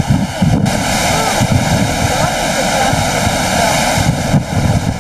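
Wind buffeting the microphone on the open deck of a cruise ship running near top speed, over the steady rush of the sea churned up in the wake.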